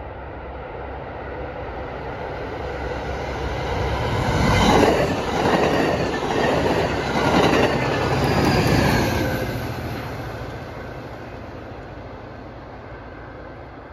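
Push-pull passenger train passing close by, cab car leading and locomotive pushing at the rear: the rumble of wheels on the rails builds, is loudest in the middle as the cars go by, then fades as the train moves away.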